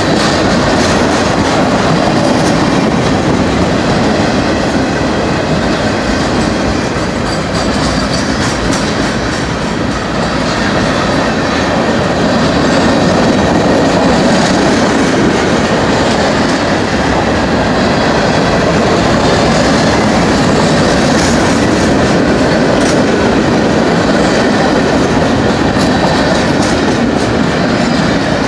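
Freight cars of a passing train rolling by: a loud, steady rumble of steel wheels on the rails.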